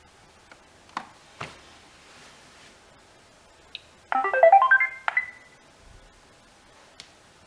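Roomba 880 robot vacuum playing its electronic reset tune: a quick run of beeps climbing in pitch and ending on a short high note, after two faint clicks and a single short beep as its power button is held down.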